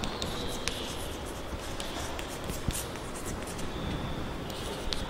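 Handwriting: a run of light, quick scratching strokes over a steady low room hiss.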